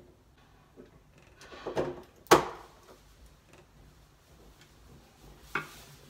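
Knocks and clicks of a rim nightlatch case being handled and fitted against the door: a short clatter about two seconds in, then the loudest, a single sharp knock, and one more click near the end.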